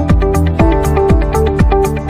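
Electronic dance music with a steady kick-drum beat, about two beats a second, with hi-hats and synth notes over it.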